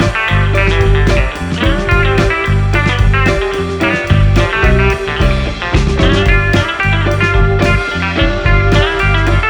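Background music: a guitar-led blues-rock track with a steady beat.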